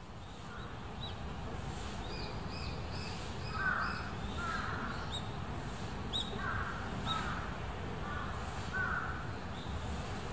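Crows cawing in three pairs of calls, starting about three and a half seconds in, with small birds chirping high and thin and a steady low outdoor rumble underneath.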